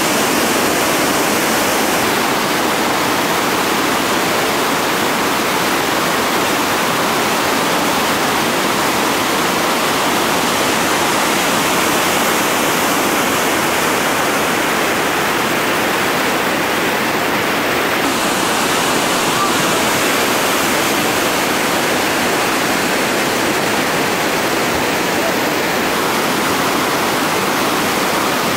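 Loud, steady rush of whitewater pouring over a seven-foot river waterfall and churning through the rapids below it.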